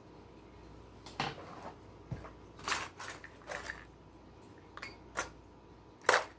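A handful of short scrapes and clicks from handling the crochet work, thread and sewing tools close to the microphone, the loudest a little before the end.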